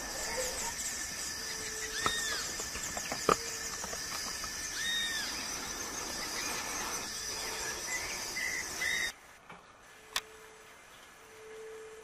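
Forest ambience with a steady high insect buzz. A bird gives a short arched call about two seconds in and again about three seconds later, with a couple of sharp clicks between. About nine seconds in the insect sound cuts off abruptly, leaving a much quieter background.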